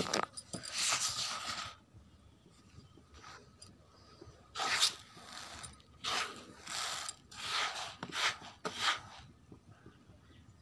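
Coarse dry grain being pushed and spread by hand across a plastic tray: dry scraping rustles, one longer one near the start and about five short ones in the second half.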